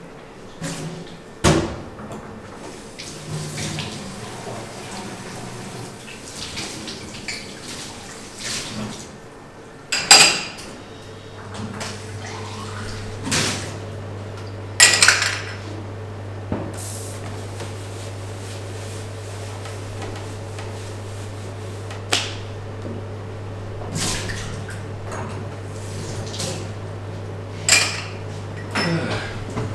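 Glasses and dishes clinking and knocking as they are cleared and handled, in a string of separate sharp clinks. A steady low machine hum starts about a third of the way in and carries on underneath.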